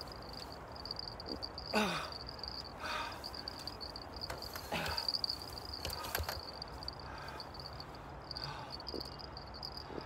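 A cricket trilling steadily at a high pitch. Twice, about two and five seconds in, a man lets out a sighing breath that falls in pitch, winded after landing a big fish, with some brief handling noises between.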